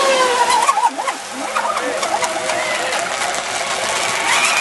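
Several radio-controlled racing boats running at speed, their motors whining as a steady high hiss with wavering tones that slide up and down as the boats pass and turn.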